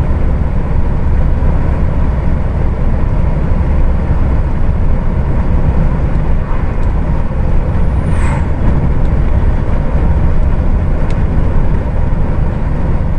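Heavy truck driving on the highway: steady, loud engine and road rumble heard inside the cab. A brief high squeak falls in pitch about eight seconds in.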